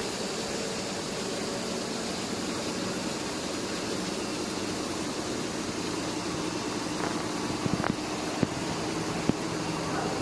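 A 30-bar, 15 kW FH1230 air compressor running steadily: an even mechanical hum over a broad hiss, with a few sharp clicks near the end.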